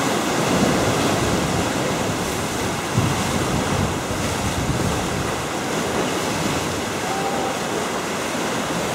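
Steady wash of ocean surf in the rocky inlet below the cliff, with wind on the microphone.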